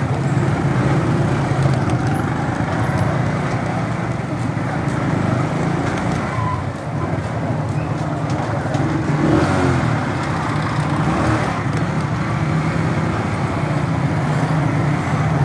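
Honda CD-70's small single-cylinder four-stroke engine running steadily at low riding speed, with street noise around it.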